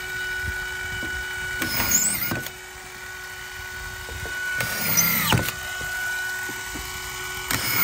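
Simpson Quik Drive cordless auto-feed screw gun running continuously with its trigger locked, a steady motor whine. Three times, about three seconds apart, the whine dips and recovers as the gun drives a 3-inch collated subfloor screw into the AdvanTech subfloor panel.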